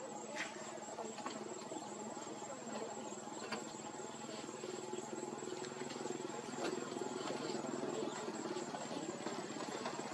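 Steady high-pitched insect trilling, typical of crickets, with a low continuous hum beneath it and a few faint clicks.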